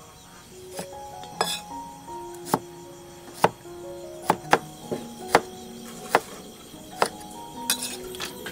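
Steel cleaver chopping limes on a wooden chopping block: about a dozen sharp knocks at an uneven pace, over background music.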